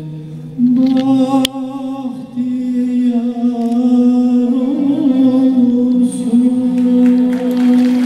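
Male solo voice singing Turkish classical art song, holding long sustained notes with a wavering vibrato in the closing phrase. The first hint of applause comes in at the very end.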